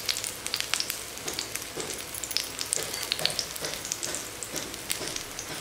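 Semolina uttapam batter frying in oil in a hot pan: a steady sizzle with many small crackles and pops.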